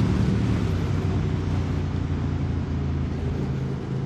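QJ Motor SVT650X motorcycle with an Arrow Racetech slip-on exhaust running at steady, moderate revs while riding, easing off slightly after a burst of acceleration, with wind rushing over the microphone.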